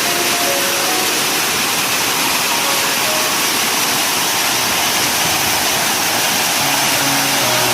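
Loud, steady rush of a waterfall, water pouring and splashing without a break.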